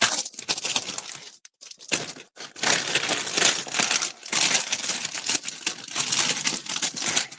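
Small plastic bags of diamond painting drills being handled and packed away: crinkling plastic with the tiny resin drills clicking and rattling inside.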